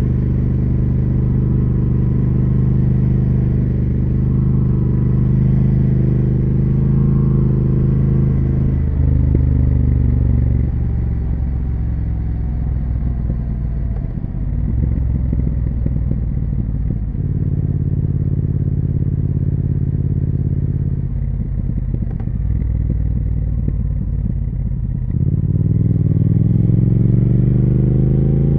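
Triumph Speed Twin 1200 parallel-twin engine and exhaust under way: it holds a steady note at first, the revs drop and change several times through the middle, and near the end it is accelerating hard, with the pitch rising steeply.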